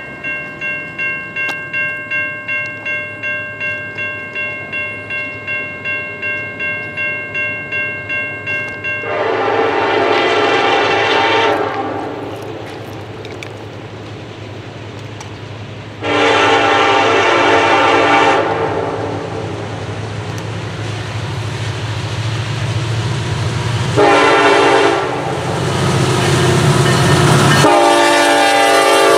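A bell rings steadily, about two strokes a second, then the 3rd-generation Nathan K5LLA air horn on Norfolk Southern SD70ACe 1004 blows the grade-crossing signal: long, long, short, long. The locomotive's diesel rumble grows as it approaches.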